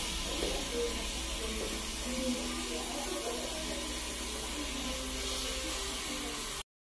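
Steady hiss of room noise with faint, muffled voices in the background, cutting off suddenly near the end.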